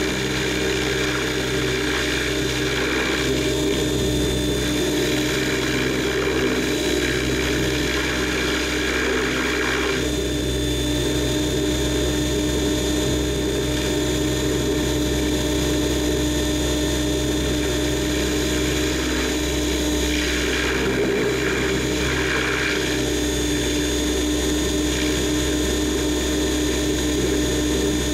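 Multirotor drone's electric motors and propellers running in flight, a steady whine of several tones, as picked up by its onboard camera; the pitch shifts slightly about ten seconds in and again around twenty seconds in.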